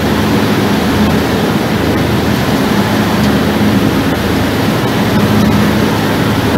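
Passenger ferry under way, heard from its open deck: a steady engine drone under the rush of wake water and wind, loud and unchanging.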